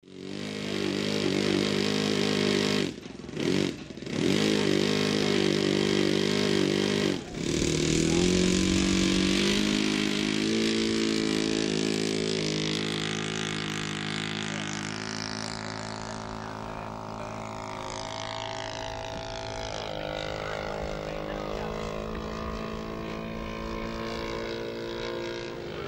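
The engine of a giant-scale radio-controlled Stinson model plane, running steadily. About eight seconds in it revs up for the takeoff run, then holds a steady drone that slowly grows fainter as the plane climbs away.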